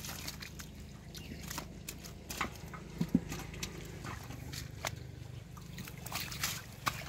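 Scattered wet slaps, squelches and rustles of large catfish being gripped and dropped onto wet grass, with one louder thump about three seconds in.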